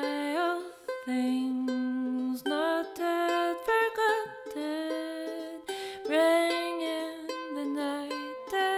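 A woman singing a folk song, holding long notes.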